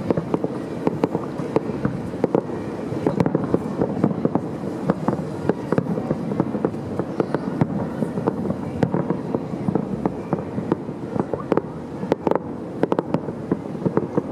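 Fireworks going off in quick succession: a dense run of sharp bangs and crackling pops, several a second, over a steady rumble.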